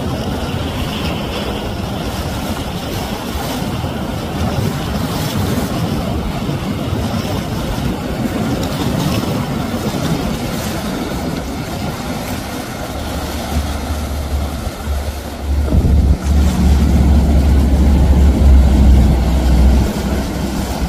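Riva flybridge motor yacht running under way: engine drone mixed with the rush of water and spray off the hull. A deep low rumble builds about two-thirds of the way through and is loudest near the end.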